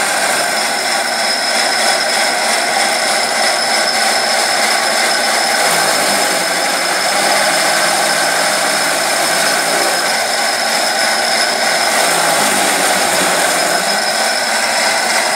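Electric chaff cutter running under load, chopping straw and blowing the chaff out of its discharge chute: a steady high whine over a loud, even rushing noise.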